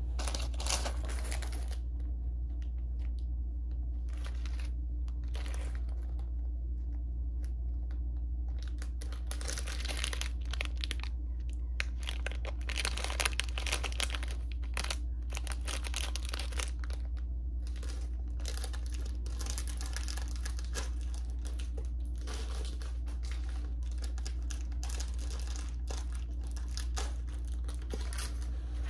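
Clear plastic bags of Lego pieces crinkling and rustling as they are handled, with the small plastic bricks clicking and rattling, busiest in the middle. A steady low hum lies underneath.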